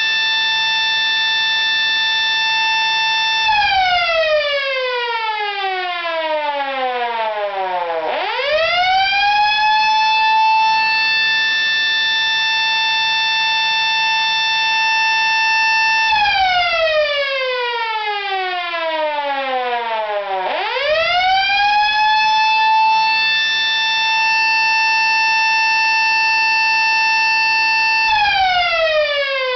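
Federal Model A electric siren running on a PGA timer's alarm cycle: it holds a steady wail, then as the power cuts off it winds down in falling pitch over about four seconds, and spins back up to full pitch. This happens on a repeating cycle of about eight seconds on and four seconds off, winding down three times and climbing back up twice.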